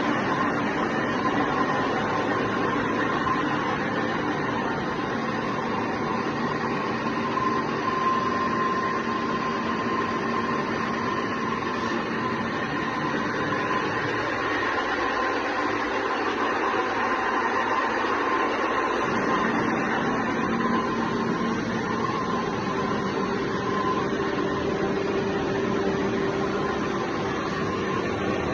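MA655A2 CNC machine tool running steadily, a mechanical hum with a few steady whining tones. About halfway through, part of the low hum drops away for several seconds.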